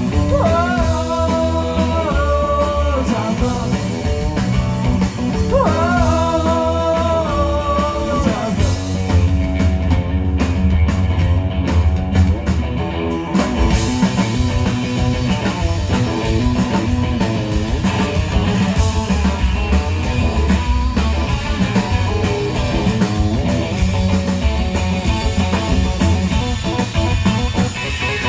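Live rock and roll trio playing a passage with no sung words: electric guitar over upright double bass and drums. Two long held notes ring out, one at the start and one about six seconds in.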